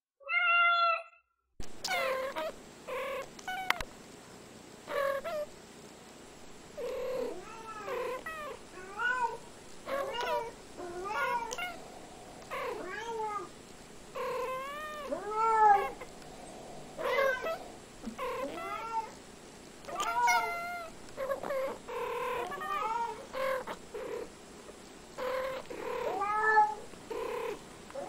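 Domestic cats meowing: one meow right at the start, then a long run of short meows, one or two a second, each rising and falling in pitch.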